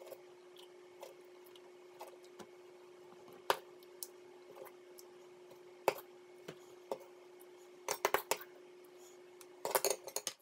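Metal fork clinking and scraping on a ceramic plate as the last of a slice of cake is scooped up. There are single sharp clinks a few seconds apart, then quick runs of clinks about eight seconds in and near the end, over a steady faint hum.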